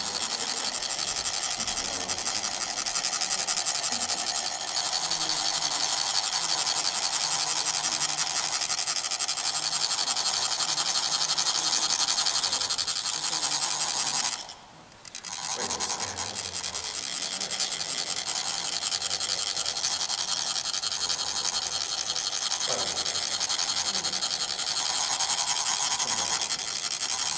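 Ridged metal chak-pur funnel rasped by a second chak-pur, a fast, even scraping that shakes a thin trickle of coloured sand out onto a sand mandala. It stops for about a second a little past halfway, then resumes.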